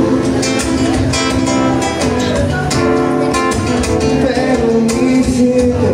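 Acoustic guitar being played, chords and picked notes in a steady rhythm.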